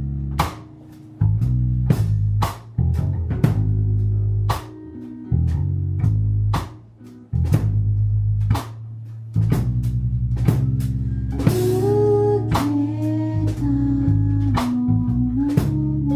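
Band music with a steady drum beat, bass and guitar. About two-thirds of the way through, a cymbal crash brings in a higher melody line that bends in pitch.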